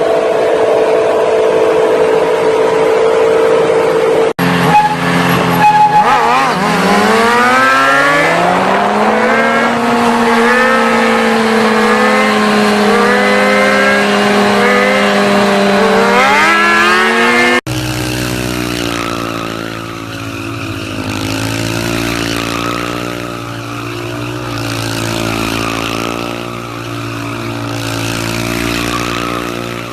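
Motor vehicle engines in several cut-together clips. First an engine runs steadily. Then an engine climbs in pitch as it accelerates and settles into a steady run, with smaller rising and falling engine sounds over it. After a sudden cut, another engine runs steadily, its pitch wavering slightly.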